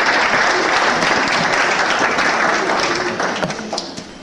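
Audience applauding, thinning out and dying away near the end.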